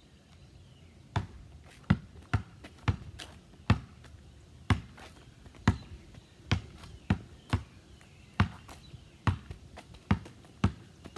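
A Spalding basketball being dribbled, with between-the-legs and behind-the-back moves: a string of sharp bounces at an uneven pace, roughly one to three a second, starting about a second in.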